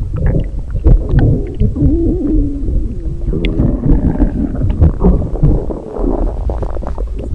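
Human stomach rumbling and gurgling: a continuous low growl with a wavering, pitched squeal about two seconds in and scattered small pops throughout.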